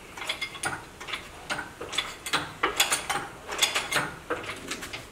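Irregular metallic clicking and clinking from a shop engine hoist and the chain-hung engine as the lifted engine is steadied and shifted.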